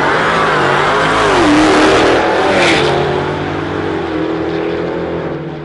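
A Dodge Challenger SRT Demon with a supercharged Hemi V8 and an EcoBoost Mustang accelerating hard down a drag strip side by side. Their engines climb in pitch and drop back at each gear change, then fade after about three seconds as the cars run away down the track.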